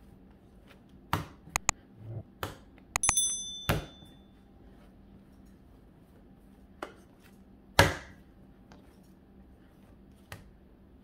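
Bread dough being kneaded by hand on a floured countertop: irregular knocks and slaps as it is pushed, turned and dropped onto the counter, a cluster in the first few seconds and one louder slap about eight seconds in. A brief high ringing clink about three seconds in.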